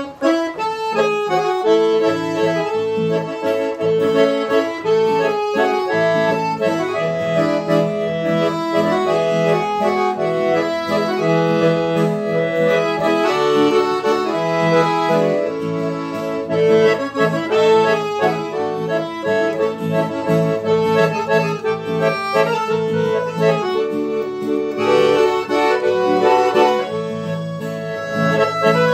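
Piano accordion playing a hymn tune, a melody over sustained chords, with an acoustic guitar accompanying underneath; no singing.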